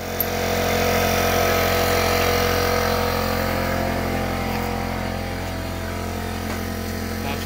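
Air compressor motor running steadily, starting up sharply at the start as air is drawn through the hose into a PVC pipe.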